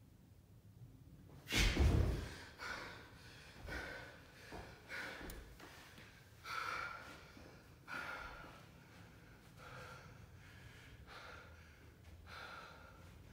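A man breathing hard and gasping. A loud, sharp gasp comes about one and a half seconds in, then shorter breaths and gasps follow about once a second and grow fainter toward the end.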